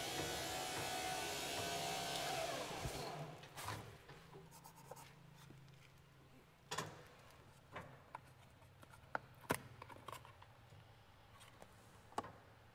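A motor whines steadily, then winds down and stops about three seconds in; after that come scattered light clicks and rubbing.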